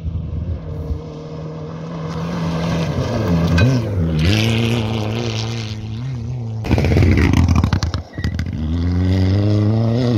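Rally car engine coming on at speed along a dirt road, its pitch dipping and climbing through gear changes as it nears. It passes close about seven seconds in with a rush of gravel and dirt spraying, and near the end the engine pitch rises steeply as it accelerates.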